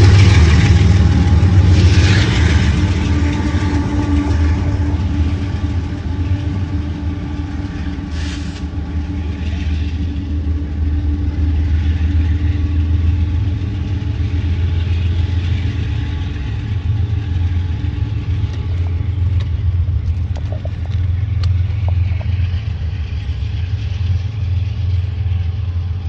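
Double-stack container freight train rolling along below, giving a steady low rumble with a diesel hum. It is loudest at first and eases over the first few seconds as the cars move off.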